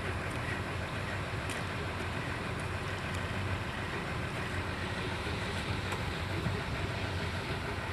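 Hyundai R330LC-9S excavator's diesel engine running at a steady, even drone, with a few faint clicks on top.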